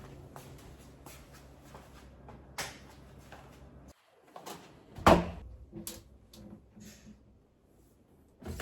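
Household handling sounds: light clicks and knocks over a faint steady hum that cuts off abruptly about four seconds in, then a loud thud, like a cupboard door or drawer being shut, a second later, followed by smaller knocks and another thump near the end.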